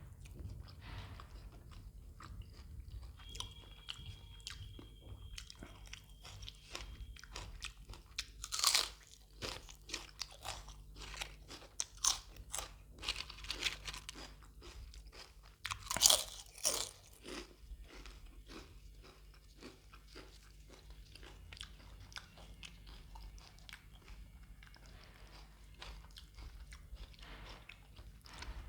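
Close-miked chewing and crunching of food, with repeated crunchy bites. The loudest come about nine and sixteen seconds in.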